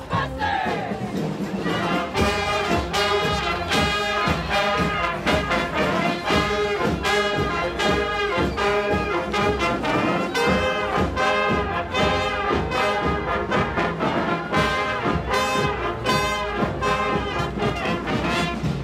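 Live brass band playing a fast dance tune, trumpets and trombones in short, punchy repeated phrases over a steady beat.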